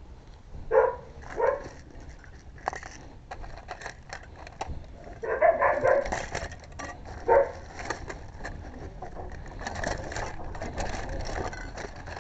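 Dogs barking inside the house: two short barks about a second in, a longer run of barking around five to six seconds, and another bark at about seven seconds, with scattered sharp clicks in between.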